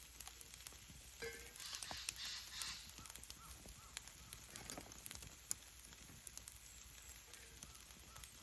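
Wood campfire burning, with scattered crackles and small pops and a short hiss about two seconds in.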